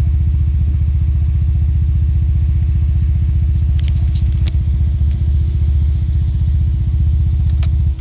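Peugeot 207 1.6 THP turbocharged four-cylinder engine idling at about 1,000 rpm with a steady low pulsing, heard from inside the cabin, on a car with a faulty engine management system. Near the end the engine is switched off and the sound drops away.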